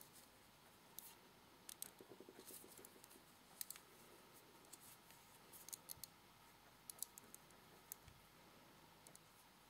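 Faint, irregular clicks and light scratching of a crochet hook catching and drawing yarn through loops as a half double crochet stitch is worked.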